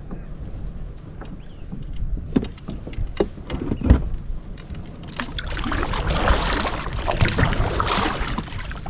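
Wind rumbling on the microphone, a few sharp knocks against the kayak between about two and four seconds in, then about three seconds of loud water splashing.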